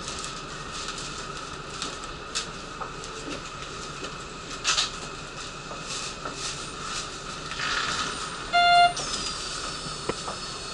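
Ambience inside a commuter train standing at a station with its doors open: steady background noise and scattered clicks and knocks. About nine seconds in comes a short, loud toot, followed by a high whine falling in pitch.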